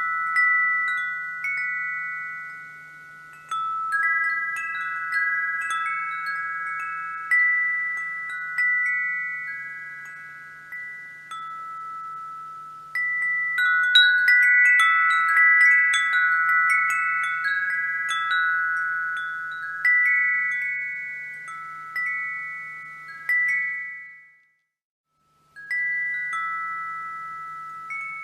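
Wind chime ringing, its rods struck irregularly in clusters at a few set pitches, each note decaying slowly and overlapping the next, over a faint low hum. About 24 seconds in the ringing fades and drops out to silence for about a second, then starts again.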